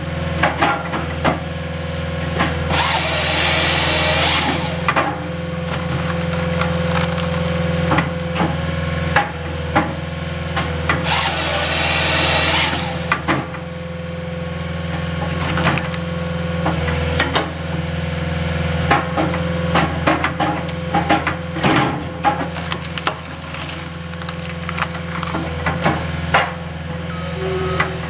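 Halverson HWP-140B firewood processor on a skid steer at work: the machine's engine runs steadily while the saw bar cuts through the log twice, each cut lasting about two seconds, with many sharp knocks and cracks of wood being split and pieces dropping.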